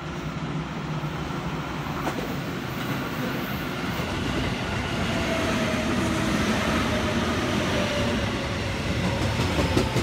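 Commuter electric train passing close by on the JR Kobe Line, growing louder as it approaches, with the rumble of its wheels on the rails and a faint falling whine in the second half.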